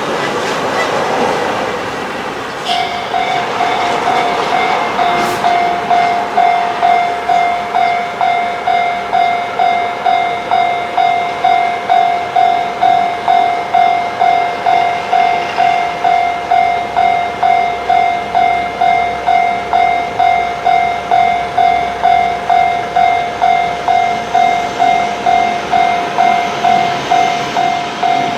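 Japanese level-crossing warning bell starts about three seconds in and rings on steadily: an electronic clanging tone repeating about twice a second.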